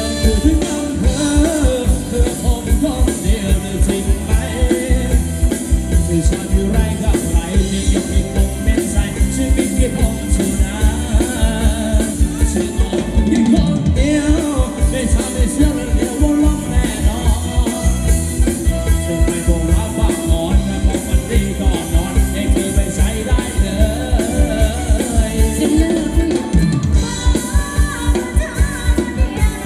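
Live band playing upbeat Thai ramwong dance music, with a steady, fast drum-kit beat.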